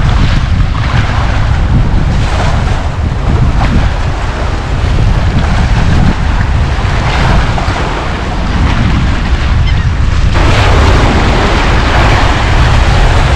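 Strong wind buffeting the microphone, a heavy rumble, over the wash of choppy waves splashing against rocks. About ten seconds in the hiss of wind and water grows louder and stays up.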